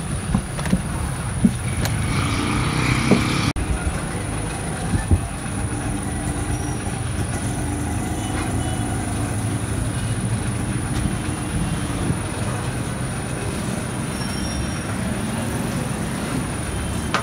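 Steady low rumble throughout, with a few dull knocks in the first three seconds as dough is pressed on a plastic board.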